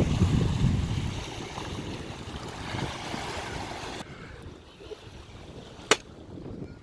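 Wind buffeting the microphone over the wash of water around a small boat. It is loudest in the first second and drops much quieter about four seconds in, with one sharp click near the end.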